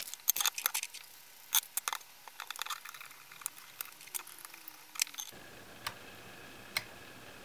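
Light, scattered clicks and taps of hard plastic being handled as a 9-volt battery is fitted into an AEMC SL261 clamp-on current probe. The clicks come thickly for the first five seconds, then a few single clicks follow as the probe is switched on.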